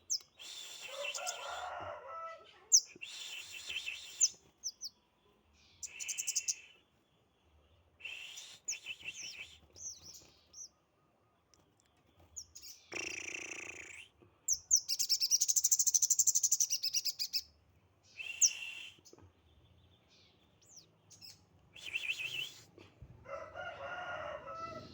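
Sogon songbird singing in separate phrases with pauses between them: sharp high whistles and chirps, and one long, loud, fast trill a little past the middle. Lower, fuller calls come near the start and near the end.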